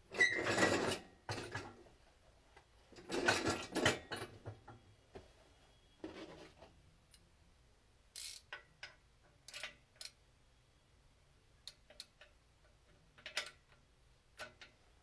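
Metal tool handling on a stripped Subaru FA20 engine block: two louder bursts of clattering in the first four seconds, then scattered light clicks of a ratchet wrench on the crankshaft bolt as the crank is turned.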